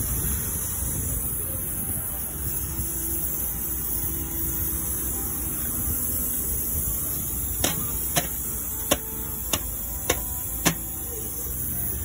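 Oxy-acetylene welding torch flame on a steel generator exhaust muffler, welding shut the hole that made the generator noisy: a steady low rushing. In the second half come six sharp taps about half a second apart.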